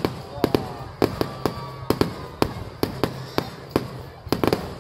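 Fireworks going off: a quick, irregular string of sharp bangs, roughly two or three a second.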